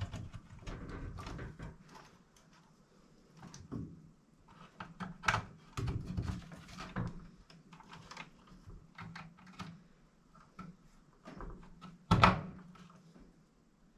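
Scattered plastic clicks and knocks as wire connectors are pushed onto the terminals of a replacement Maytag dryer timer, with one louder knock about twelve seconds in.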